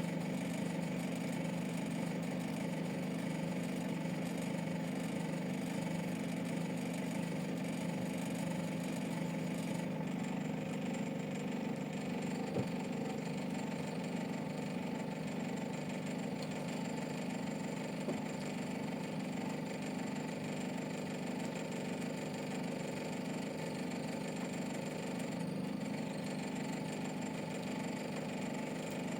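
Steady mechanical hum of a motor running, with a faint click about twelve seconds in.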